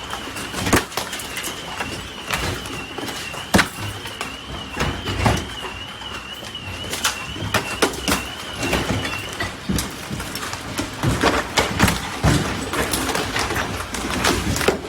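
Large hailstones striking cars and hard surfaces in irregular, sharp impacts of varying loudness, some much louder than others. A high warbling tone runs underneath and stops about nine and a half seconds in.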